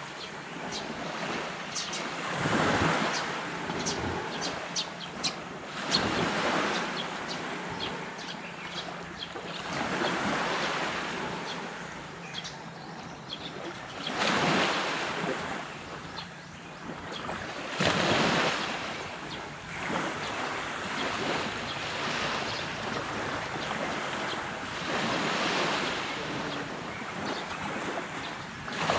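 Sea waves breaking and washing up a beach, the rush of surf swelling and falling every three to four seconds. There are short crackling ticks in the first few seconds.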